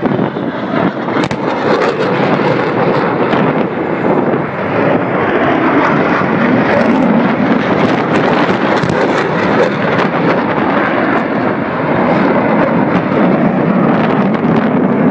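Aircraft engine noise, loud and steady with some crackle throughout.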